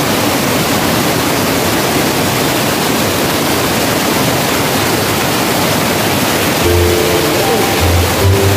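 Steady rushing roar of a big waterfall, loud and even throughout. Background music with held notes and a bass line comes in about two-thirds of the way through.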